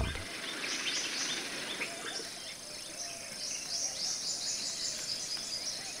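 Outdoor wildlife ambience: many quick high-pitched chirps, busiest in the second half, over a steady hiss.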